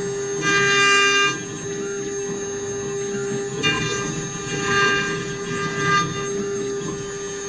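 CNC router spindle running with a steady whine while its end mill cuts a wooden workpiece held in the rotary axis's chuck. The cutting noise swells in louder bursts as the bit bites: the strongest comes within the first second and a half, and shorter ones come around four, five and six seconds in.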